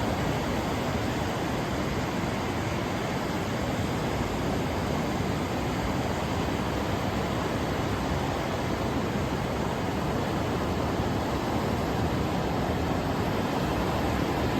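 Steady roar of ocean surf breaking on a beach, a continuous rushing noise with no distinct single crashes.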